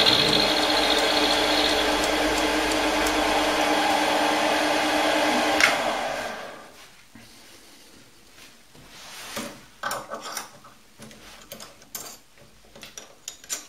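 Optimum D180x300 Vario mini lathe running steadily with an end mill in its spindle, milling a steam-engine connecting rod held in a milling-slide vise. About six seconds in the motor is switched off and the spindle runs down within about a second. This is followed by scattered metallic clicks and knocks as the end mill is changed in the collet.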